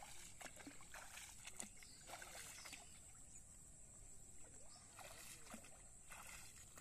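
Faint sloshing and splashing of legs wading through shallow, weedy pond water, in several short bouts, over a steady faint high hiss.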